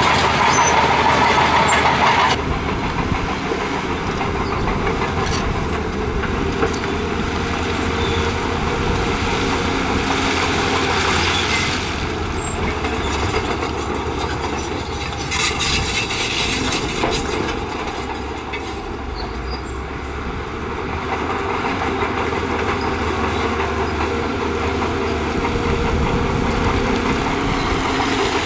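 Crawler bulldozer at work: its diesel engine running under load with a continuous clanking clatter from its steel tracks and the rock it is pushing. The sound changes abruptly about two seconds in.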